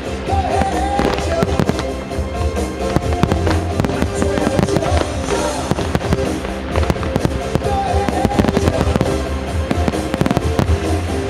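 Aerial fireworks shells bursting in quick, dense succession, many sharp bangs and crackles, with music playing underneath.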